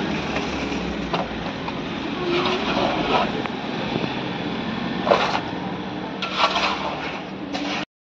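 A steady engine drone runs under repeated scrapes of a shovel and metal pans in wet concrete, several short strokes a second or two apart. The sound cuts out abruptly near the end.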